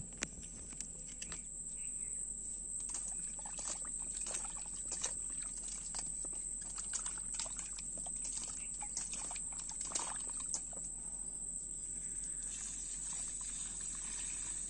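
Hands rinsing cut fish pieces in water in a metal bowl: irregular small splashes and knocks, busiest in the middle and easing off near the end. A steady high insect buzz sounds throughout and grows fuller near the end.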